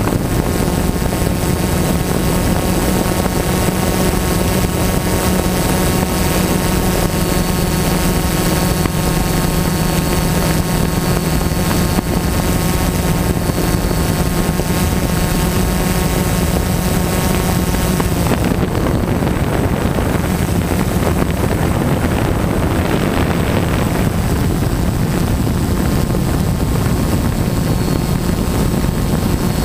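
DJI Phantom quadcopter's four electric motors and propellers droning, heard close up from the camera slung beneath it: a steady pitched buzz with a thin high whine above it. About eighteen seconds in, the steady pitch gives way to a rougher, noisier whir.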